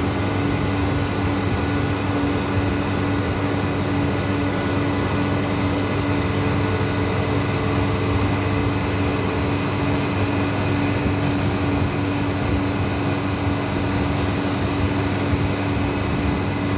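Cold-storage refrigeration machinery running, a steady hum with a constant low drone and a fixed higher tone over even machine noise.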